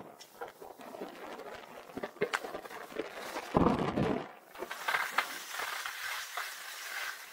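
Skis sliding and carving on hard, icy groomed snow: a scraping hiss with scattered ticks and crackles from the edges. About halfway through comes a short rush of wind on the microphone.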